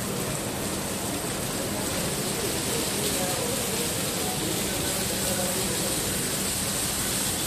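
Water jet from a fire hose nozzle spraying during a hydrant system test: a steady hiss and splatter of water.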